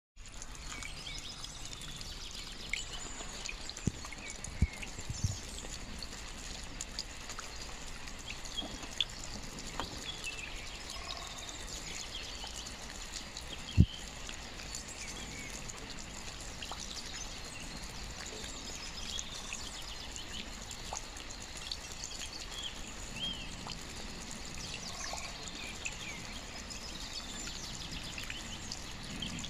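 Steady rain with water trickling and dripping, and small birds chirping on and off; a few sharp taps, the loudest about halfway through.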